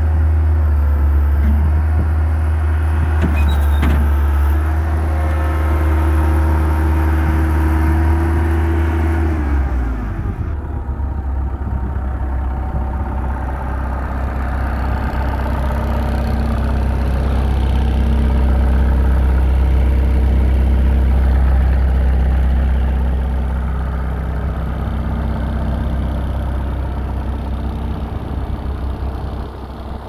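Bobcat 853 skid steer's diesel engine running at raised throttle, then throttled back about ten seconds in and idling steadily at the lower speed.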